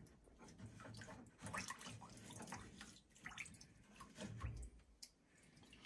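Faint trickling and dripping of central heating system water running out of a loosened circulator pump into a plastic tub, with small clicks and knocks of the pump being worked free; a dull knock about three-quarters of the way through is the loudest moment.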